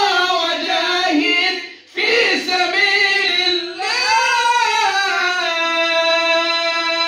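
A man singing an unaccompanied Arabic devotional chant in praise of the Prophet into a microphone. The line is ornamented, with the pitch bending and turning, and breaks off briefly about two seconds in. Halfway through he settles on one long, high, steadily held note.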